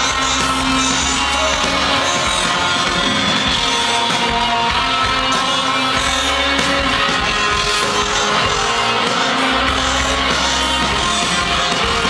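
Loud live rock band playing, with electric guitar and a singer's vocals, recorded from the audience.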